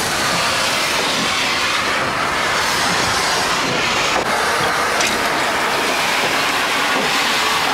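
Union Pacific No. 4466, an 0-6-0 steam switcher locomotive, venting steam in a loud, steady hiss, under steam and ready to work.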